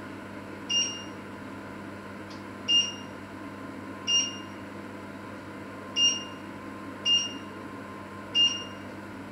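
Electric cooktop's control panel beeping six times at uneven intervals, a short high-pitched electronic beep each time a control is pressed.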